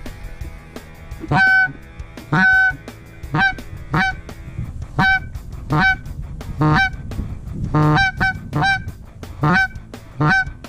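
Canada goose honking: about eleven loud single honks, one after another, every half second to a second, starting about a second in.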